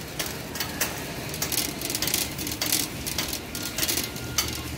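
Metal wire shopping cart rattling as it is pushed along, its wheels rolling over a polished concrete floor with a steady clatter of quick, irregular clicks.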